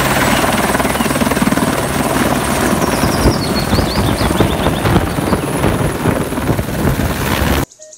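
Helicopter turbine and rotor at lift-off power as it rises into a hover, the rotor blades beating rapidly over a steady engine tone. The sound cuts off suddenly near the end.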